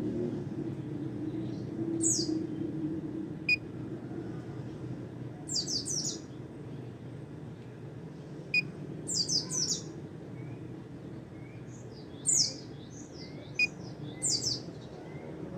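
Caged white-eye (pleci) singing in short, rapid bursts of high, quick chirps, several bursts a few seconds apart, with sharp single ticks between them.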